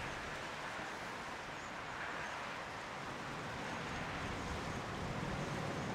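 Steady hiss and distant rumble of open-air ambience. A low rumble grows slightly louder near the end as an EF200 electric-hauled freight train approaches from far off.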